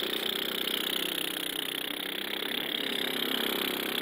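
A woman making a long, steady buzzing noise with her mouth, like a motor running.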